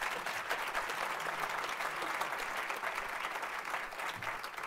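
Audience applauding: many people clapping together in a dense, even patter that starts to die down near the end.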